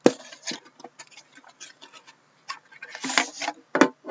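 Upper Deck Premier hockey card box being unpacked: the tin handled and slid out of its cardboard sleeve. A sharp click at the start, a run of light ticks and clicks, then a scrape and another click near the end.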